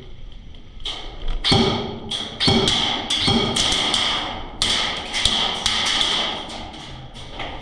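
Airsoft guns firing: an irregular run of sharp cracking clicks in several short bursts, a few with a deeper thud.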